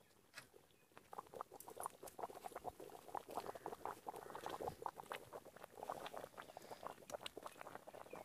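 Thick goat head gravy boiling hard in a wide metal pan: a dense, irregular run of bubbling pops that starts about a second in.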